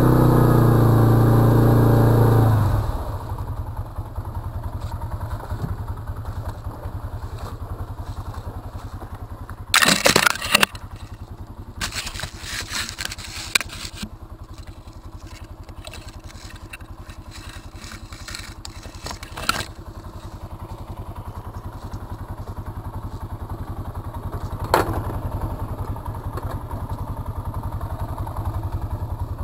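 Arctic Cat 700 ATV engine revving loudly for the first couple of seconds, then dropping to a steady low idle. Over the idle come a few short bursts of clattering and crunching about ten, thirteen and twenty seconds in, and a single knock near the end.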